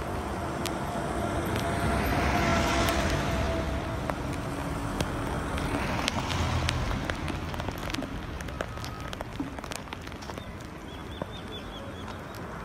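Two road vehicles passing close on wet tarmac, tyres hissing on the wet road: a minibus about two to three seconds in, its engine note falling as it goes by, then a car about six seconds in. Light rain falls throughout, with scattered small ticks.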